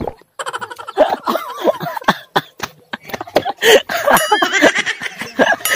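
Lively voices laughing and exclaiming without clear words, in quick short bursts.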